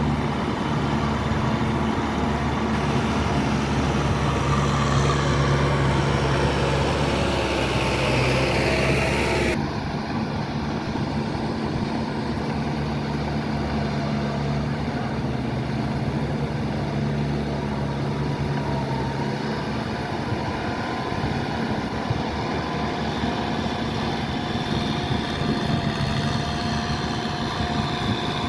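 Kubota tractor's diesel engine running steadily under load. About ten seconds in, the sound changes abruptly and becomes a little quieter and duller.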